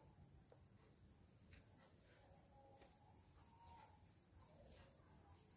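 Near silence: room tone with a faint steady high-pitched whine.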